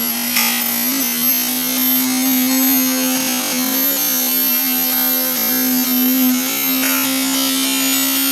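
A machine running with a steady buzzing hum and a constant hiss over it. The pitch dips slightly now and then, as under changing load.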